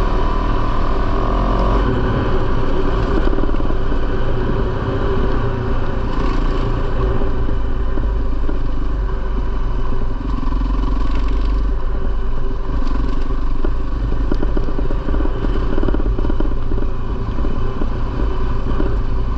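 A 450cc single-cylinder four-stroke dirt bike engine running loud and steady, with a brief change in pitch near the start.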